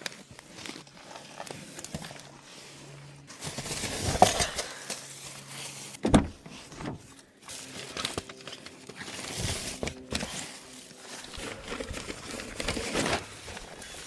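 Plastic bags and packaged camping gear crinkling and rustling as they are picked up and handled, with scattered knocks and clatters.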